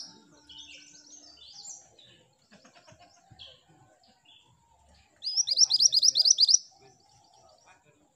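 Minivet (mantenan gunung) singing: soft scattered chirps, then about five seconds in a loud, rapid run of about ten sharp rising notes lasting about a second and a half.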